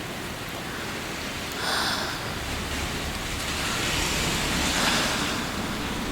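Steady rain sound, an even hiss of falling rain, with two brief louder swells of noise, about two seconds in and again near five seconds.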